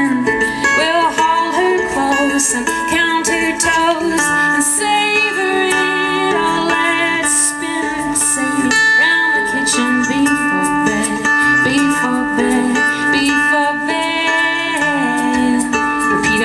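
Live acoustic song: a small acoustic string instrument strummed, a woman singing, and the light high rattle of an egg shaker.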